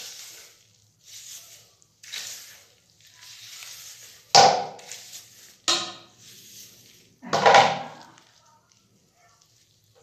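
A comb being drawn through wet, product-coated hair and hands working the hair, heard as a run of soft scratchy swishes. Three louder, sharper sounds stand out about four and a half, six and seven and a half seconds in.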